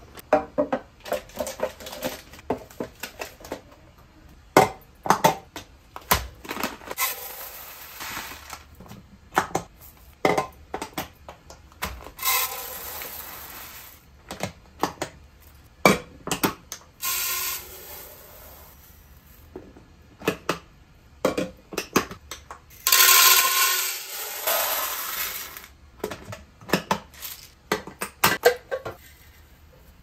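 Clear plastic OXO POP containers and bins being handled on a stone countertop and filled with dry food: a run of sharp plastic clicks and knocks, with a few stretches of rushing pour lasting a second or two.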